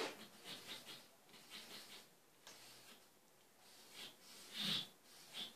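Faint short scratches of a felt-tip marker drawing on a white board, in several small strokes as facial features are sketched. There is one louder short sound near the end.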